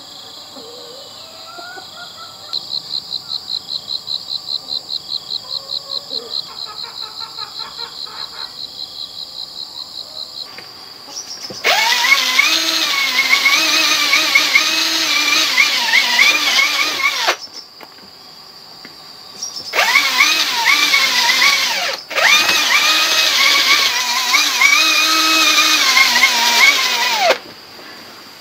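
Cordless drill boring into a bamboo post in three runs, the last two split by a brief stop, its motor whine wavering in pitch as it works. Before it, insects chirring, with a fast pulsing rhythm for a few seconds.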